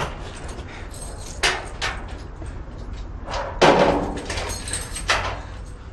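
Door sounds: a few sharp knocks, with a heavier bang a little over halfway through.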